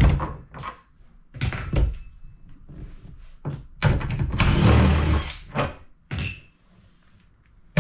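Cordless drill-driver spinning out Torx T30 screws from a Sea-Doo's plastic cover: a short run about one and a half seconds in and a longer run of about a second and a half in the middle. Sharp knocks of plastic and screws being handled fall between the runs.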